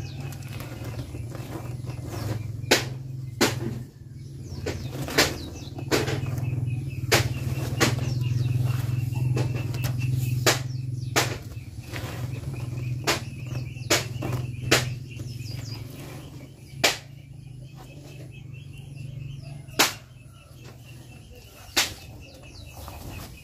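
Cut, wilting herb leaves and stems rustling and crackling as hands stir and turn them on a woven plastic mat, with sharp crackles every second or so. A steady low hum underneath fades about two-thirds of the way through.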